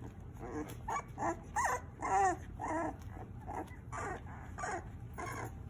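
Young puppies whining and yelping in a run of about ten short, high calls, loudest around two seconds in: the complaining of puppies being weaned from the bottle.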